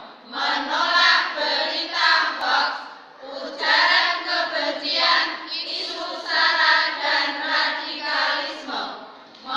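A group of women singing together as a choir, in sung phrases broken by brief pauses, one about three seconds in and another near the end.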